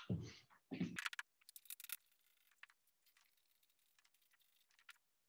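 Chalk tapping and scratching on a blackboard while a formula is written: a quick, quiet run of short ticks and scrapes for about a second, then fainter scattered strokes that die away about a second before the end.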